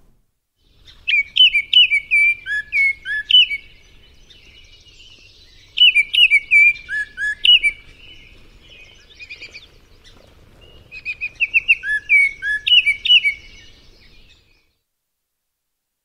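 Recorded song of a Baltimore oriole played back: three short phrases of clear whistled notes, each about two seconds long and a few seconds apart. The recording's faint background hiss cuts off abruptly near the end.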